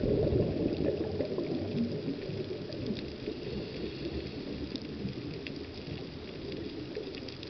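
Underwater bubbling and gurgling from a scuba diver's exhaled bubbles, loudest in the first second or so and then running on more evenly, with faint scattered clicks.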